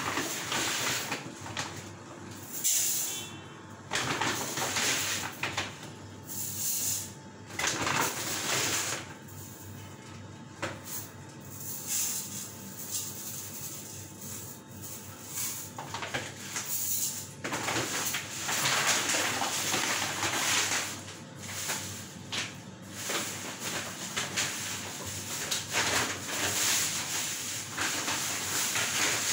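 Lutino Indian ringneck parakeet calling on and off, mixed with noisy rustling sounds that come and go.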